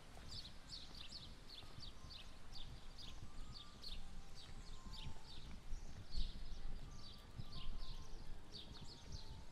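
Animal calls: a steady run of short, high chirps, several a second, over a low outdoor rumble.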